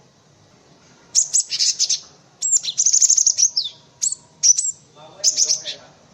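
Cinereous tit calling: after about a second, four bursts of rapid, high, sharp chirps and short trills, some ending in falling notes.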